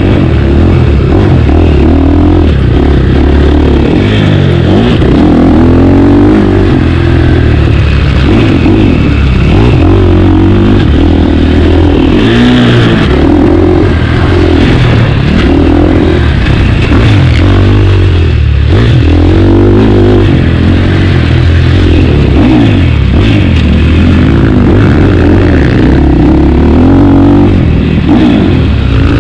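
Two-stroke motocross bike engine under race load, revving up and falling back over and over as the rider accelerates out of turns and over jumps, heard close from the bike itself.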